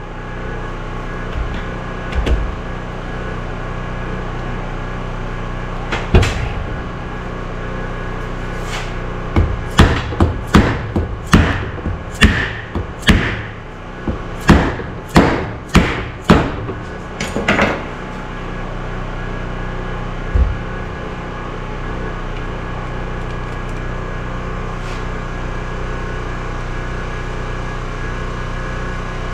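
Hammer blows on axle parts during differential reassembly: a few single knocks early on, then a run of about a dozen sharp blows in quick succession between about 9 and 18 seconds in.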